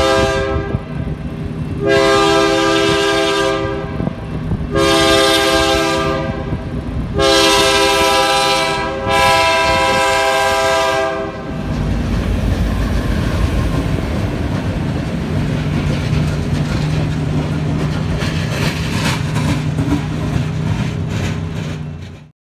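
Kansas City Southern diesel locomotive sounding its multi-chime air horn in a series of long blasts at a grade crossing, the last held about four seconds. Then the train rumbles past, with the locomotive engine running and wheels clattering over the rails, until the sound cuts off near the end.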